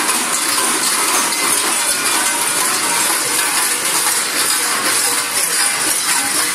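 Many large Krampus bells worn on the costumes' belts jangle and clang without pause as the fur-clad Krampus figures run and leap, a dense, steady metallic din.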